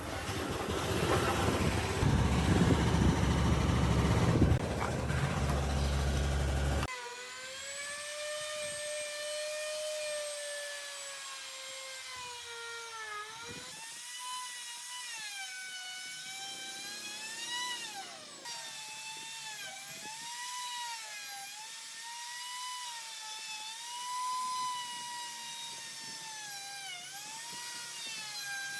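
Power tool in woodworking: a loud rushing noise for about the first seven seconds, then it changes abruptly to a high electric motor whine whose pitch keeps dipping and recovering as the tool is loaded and eased off.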